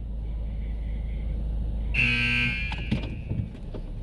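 A short electronic buzz about two seconds in, lasting about half a second, over a steady low rumble.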